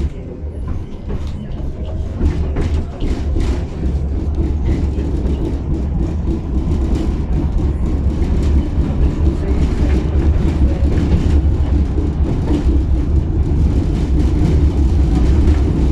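Tatra T6B5 tram running along the track: a steady low rumble of wheels and motors that grows louder over the first few seconds and then holds, with scattered light clicks.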